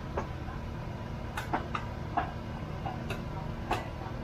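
Market background: a steady low rumble with scattered sharp knocks and clacks, about eight of them at irregular intervals.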